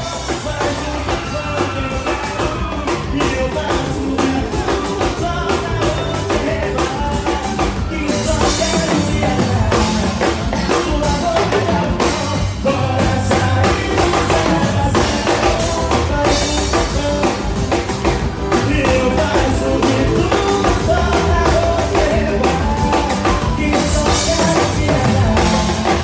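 Live band music played loud through a stage PA: a drum kit keeps a steady beat under a male singer.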